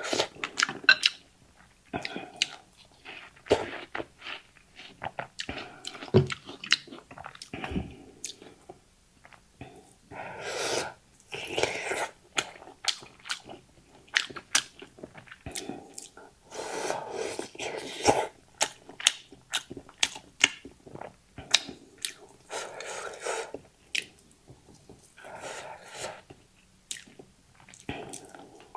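Close-miked eating of rice noodles: wet chewing with many short mouth clicks, broken several times by slurps of about a second each as noodles are sucked in.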